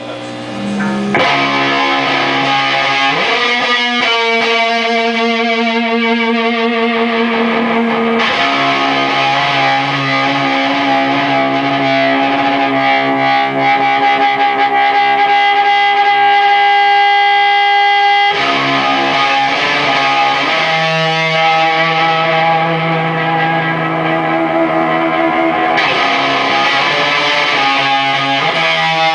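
Distorted electric guitar played through a homebuilt 15-watt 6V6 push-pull tube amplifier: held chords and sustained notes, with one note held for about ten seconds in the middle.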